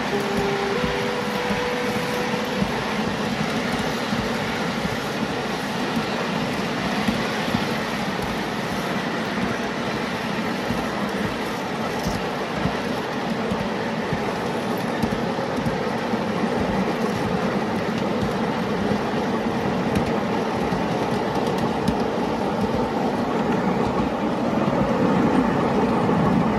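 A miniature railway train running along the track behind a scale Class 31 diesel locomotive: a steady rolling rumble of small wheels on rail, growing louder near the end. A faint short two-note tone, lower then higher, sounds in the first couple of seconds.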